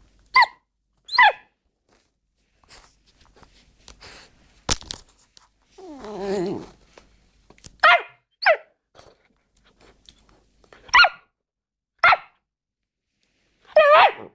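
A Dogo Argentino puppy, about ten weeks old, giving short high-pitched yapping barks, seven in all and irregularly spaced. About six seconds in, it lets out a lower growl lasting under a second.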